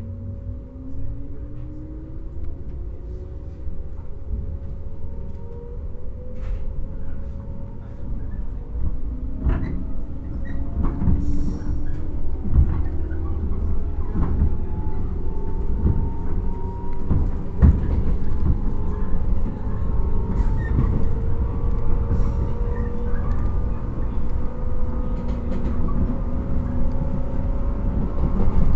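JR 115 series electric train heard from inside its motor car, the MT54 traction motors whining and rising steadily in pitch as the train accelerates, over a low running rumble with scattered clacks of wheels on rail joints.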